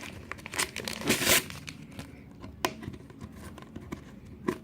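Label being torn and peeled off a plastic drink bottle: crinkling and tearing, densest in the first second and a half, then quieter rustling with two sharp clicks later on.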